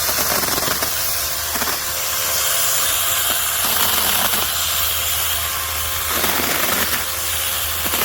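Cordless 6-inch brushless mini chainsaw running at full speed and cutting through a branch about an inch thick. It gives a steady whine with a chain hiss, and its pitch dips several times as the chain bites into the wood.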